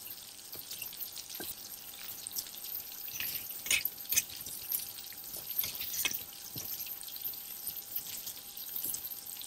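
Marinated chicken pieces frying in a shallow pan of oil over a wood campfire: a steady high sizzle with irregular sharp pops and crackles as the pieces are stirred with a spoon.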